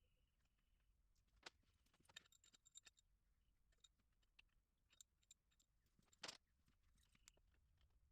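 Near silence broken by scattered faint clicks and small metallic clinks of tools and engine parts being handled during an engine teardown. A few of the clinks ring briefly, and the loudest comes about six seconds in.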